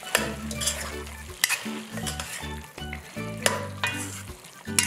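Chunks of curry beef sizzling and frying in a stainless steel pan while being stirred with a spoon, with a few sharp clicks of the spoon against the pan.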